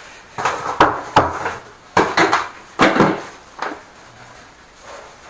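Hard knocks and clunks as a drain inspection camera reel (toilet camera) and other plumbing gear are handled and set down on a tiled bathroom floor. About six separate knocks fall in the first four seconds, then it goes quieter.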